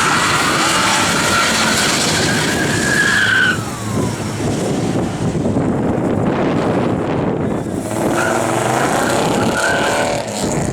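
Car tyres squealing with the engine running hard. One long squeal ends about three and a half seconds in, and a second, shorter squeal comes near the end.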